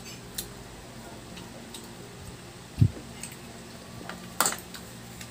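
Eating at a table: a few sharp clicks of cutlery against plates, two close together near the end, and one dull thump near the middle, over a low steady hum.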